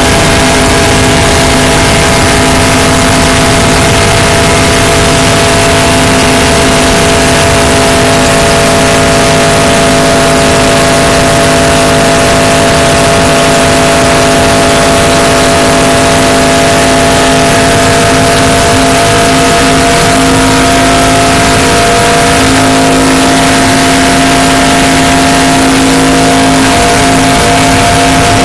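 NASCAR-style stock car's V8 engine running at speed, heard from inside the cockpit as a loud, steady drone of constant pitch over a dense hiss.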